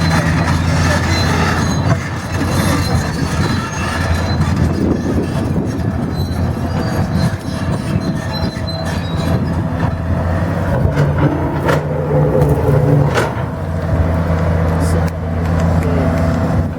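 A heavy diesel engine running, its low steady note easing off a few times and coming back, with people's voices and a few sharp knocks over it.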